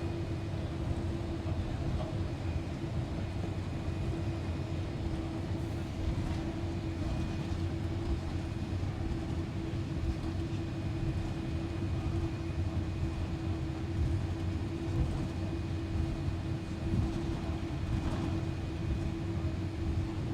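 Cabin noise inside a Boeing 787-8 taxiing on the ground: a steady low rumble with a constant droning hum from the idling engines and cabin air.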